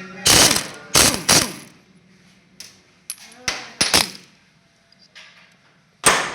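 Sharp metal-on-metal strikes and clanks with a short ringing after them: a pair in the first second and a half, three close together in the middle and one near the end, as tools and parts are worked on during motorcycle engine repair.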